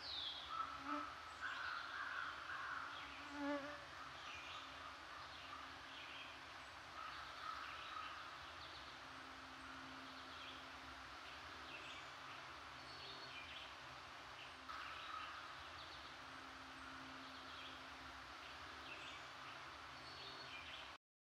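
Faint woodland ambience: scattered short, high chirps of small birds over a low steady hum that comes and goes. The sound cuts off abruptly about a second before the end.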